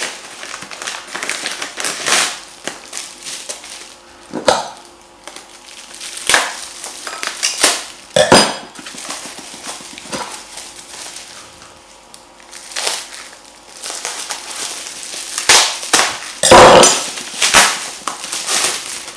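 A padded mailer envelope being torn open and a plastic-wrapped CD handled: irregular tearing, rustling and crinkling with sharp crackles, the loudest crinkling burst near the end.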